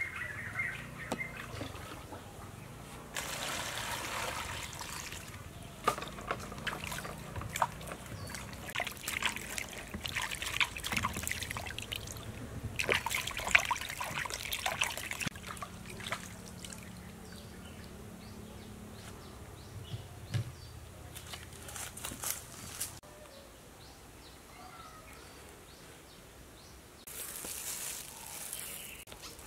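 Water splashing and trickling in a plastic basin as guavas are scrubbed and rinsed by hand, coming in several separate bursts with small knocks and drips between them.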